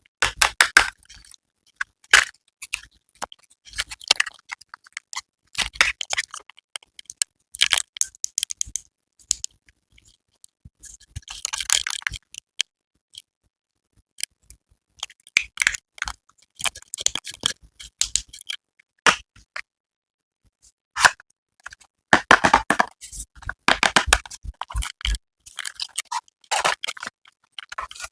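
Skincare product packaging being unboxed and handled: irregular crinkling, scraping and clicking of plastic and cardboard, in stop-start bursts with short pauses.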